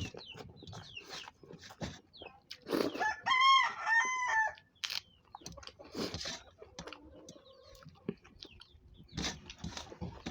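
A rooster crowing once, a run of arched, rising-and-falling notes about three seconds in, the loudest sound here. Around it are short clicks and smacks of a person eating rice by hand.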